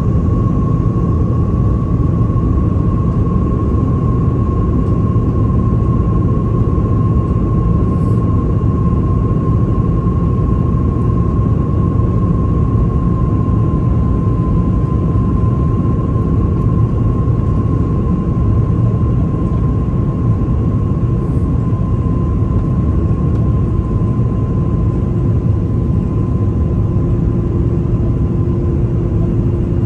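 Cabin noise of a Lufthansa Airbus A330-300 descending: a steady low rumble of airflow and the Rolls-Royce Trent 700 engines, with a steady whine running through it. A lower hum joins near the end.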